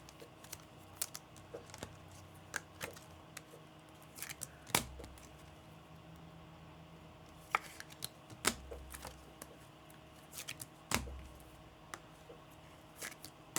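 Scattered light clicks and taps from fingers handling a trading-card pack, with a few louder knocks about 5, 8.5 and 11 seconds in.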